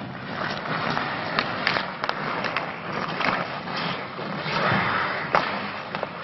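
Ice hockey skates scraping and carving across the ice, with several sharp clacks of sticks and puck scattered through.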